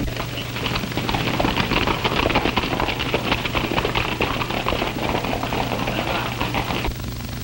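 Hoofbeats of several horses being ridden on hard ground, a dense clatter of hooves that cuts off suddenly near the end. It sits over the steady low hum of an old film soundtrack.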